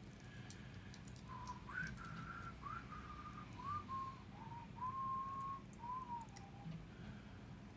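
A person whistling a short tune: a string of clear held notes, each sliding up into place, stepping gradually lower, over a steady low hum.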